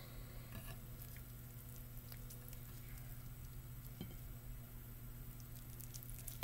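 Faint handling of a sliced sushi roll on a plate: a few small scattered ticks over a steady low hum.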